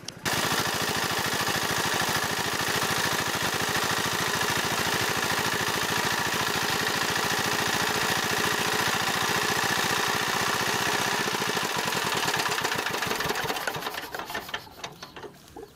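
Small engine-driven water pump running steadily with a rapid, even beat, its outlet gushing muddy water onto a fish net. The engine noise dies away about fourteen seconds in.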